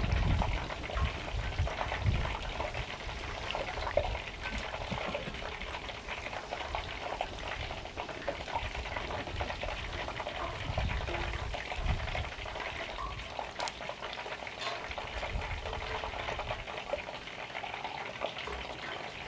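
Chicken wings deep-frying in peanut oil in cast-iron Dutch ovens: a steady crackling sizzle full of small pops. Wind buffets the microphone in low gusts, strongest near the start and again about halfway through.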